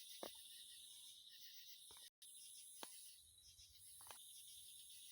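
Faint steady chorus of insects, with a few soft clicks; the sound cuts out for an instant about two seconds in.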